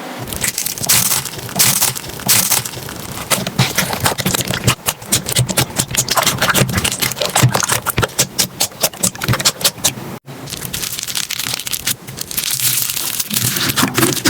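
Slime being squished and pressed, giving a dense run of small crackles and pops. It breaks off abruptly about ten seconds in and a smoother squishing follows.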